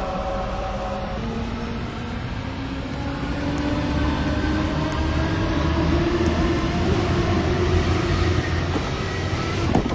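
Electric passenger train pulling away, its motor whine rising slowly in pitch over a steady rumble as it gathers speed. The sound cuts off abruptly near the end.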